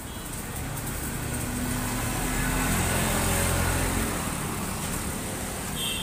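A motor vehicle passing on the road. Its engine and tyre noise swell to the loudest point about three seconds in and then fade away.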